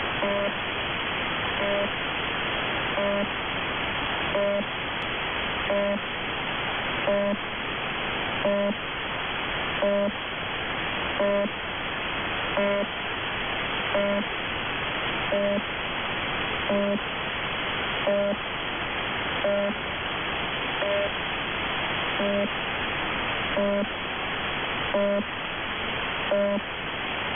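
UVB-76, the Russian 'Buzzer' shortwave station on 4625 kHz, received in upper sideband: a short, cheap-sounding buzz repeating about every second and a half over steady radio static. This is the station's new buzzer sound.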